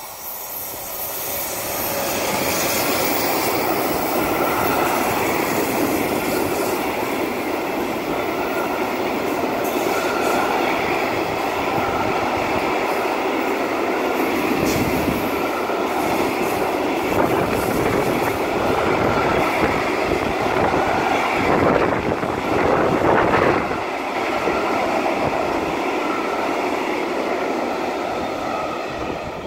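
A Bombardier Traxx electric locomotive and a long freight train of car-transporter wagons running past close by: a steady rolling noise of steel wheels on rails that builds over the first few seconds and then holds loud, with a short louder stretch near the end.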